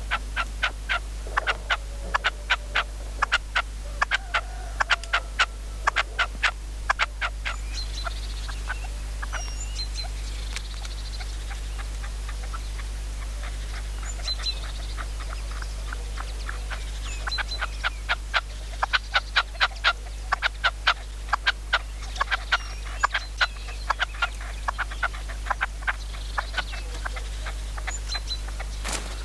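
Red-legged partridge calling in long runs of rapid, harsh notes, about four or five a second. There are two bouts with a pause of several seconds between them. Small birds chirp faintly.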